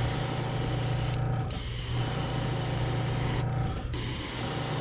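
Gravity-feed airbrush spraying copper paint: a steady hiss of air and paint that cuts out briefly twice, a little over a second in and again about three and a half seconds in, as the trigger is let off. A steady low hum runs underneath.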